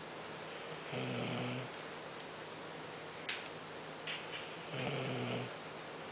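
A sleeping man snoring: two snores about four seconds apart, each a low buzz lasting under a second. A short, sharp click falls between them.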